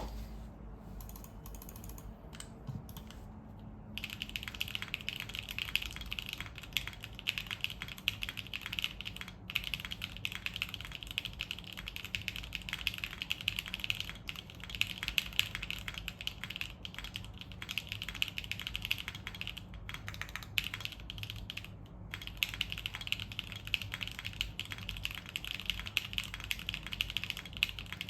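Typing on a Neo65 mechanical keyboard with stock Kailh BCP switches on an aluminium plate, ABS keycaps and case foam: fast, steady key clacks starting about four seconds in, with two brief pauses.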